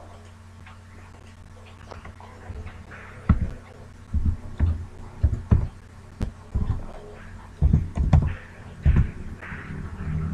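Computer keyboard being typed on: about a dozen irregular key taps, each with a dull thump, over a steady electrical hum.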